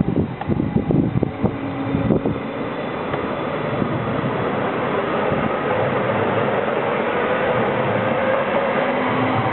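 MÁV Stadler FLIRT electric multiple unit pulling away from the platform, its traction motors whining with a pitch that rises slowly as it gathers speed, over steady wheel and rail noise. Wind buffets the microphone in the first two seconds.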